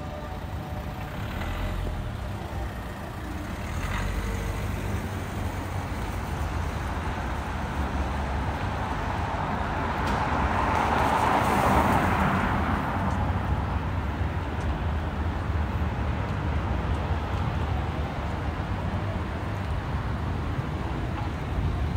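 City road traffic on wet tarmac: a steady low rumble with tyre hiss as cars pass, one vehicle swelling louder toward the middle and fading away again.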